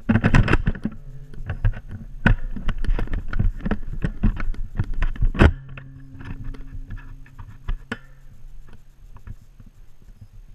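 Footsteps on a hardwood floor, mixed with knocks and rubbing from a body-worn camera jostling as someone moves fast. The knocks are dense and loud for the first half, then thin out, and a steady low hum sits under the second half.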